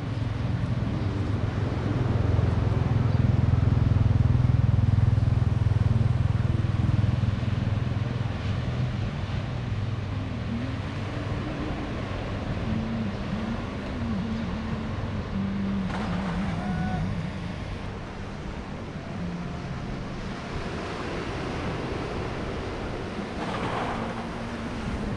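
Motor vehicle engines passing on a road: one engine hum swells to its loudest a few seconds in and fades, then further engine sounds rise and fall in pitch, over a steady outdoor background.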